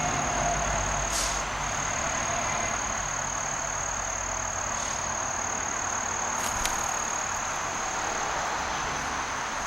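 Crickets trilling steadily at a high pitch over a hiss of outdoor background noise, with a few faint brief clicks.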